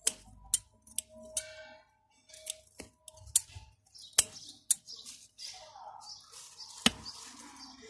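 Scissors snipping through mint stems: about ten sharp, separate snips at an irregular pace.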